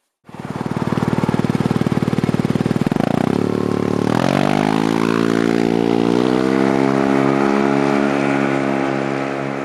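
Motor vehicle engine running with a fast pulsing beat, then revving up about four seconds in and holding steady at the higher speed.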